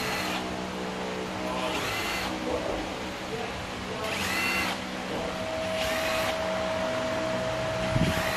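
Cordless power screwdriver whirring in about four short bursts, each rising in pitch as it spins up, as it backs out the bolts holding the mechatronic valve body on a ZF 6HP28X automatic gearbox.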